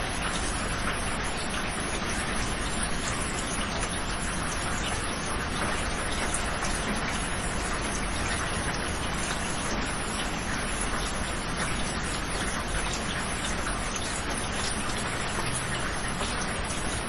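Steady rain falling in a tropical forest, an even hiss of countless drops pattering on foliage and ground.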